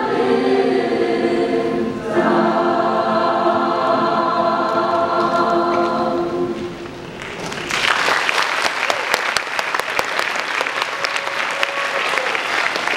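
A mixed choir sings its final sustained chords; the last chord begins about two seconds in and dies away by about seven seconds. Then the audience breaks into applause.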